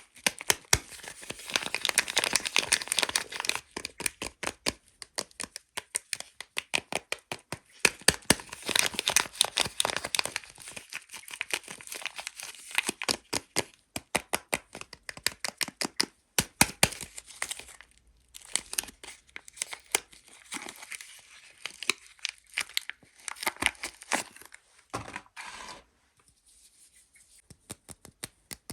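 Soap wrappers being torn open and crinkled by hand: crisp tearing and crumpling broken up by many sharp crackles and clicks, quieter near the end.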